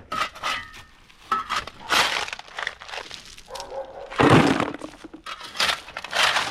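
Hard loose material clattering and cracking as containers are filled by hand: a run of sharp knocks and cracks, with the loudest clatter about four seconds in.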